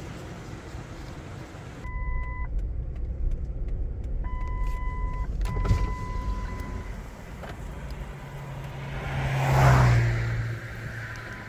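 A car going past, swelling to its loudest about ten seconds in and then fading. Before it, a steady electronic beep tone sounds three times over a low engine-like rumble.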